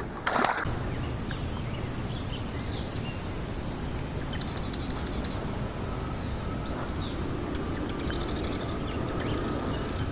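Outdoor ambience on a reedy lake: birds chirping here and there, with two short buzzy trills, over a steady background hiss.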